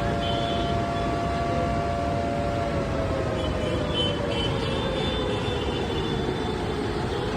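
An alert siren holds a steady pitch, then slowly falls and begins to rise again near the end. Under it runs the steady rush of a river in flood.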